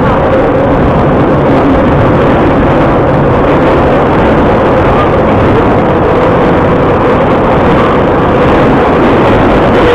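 Vintage metro train running at speed through the tunnel, heard from inside the carriage: a loud, steady rumble of wheels on rails with a faint steady whine.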